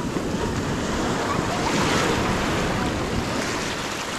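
Black Sea surf washing onto the beach in a steady wash, with wind buffeting the microphone.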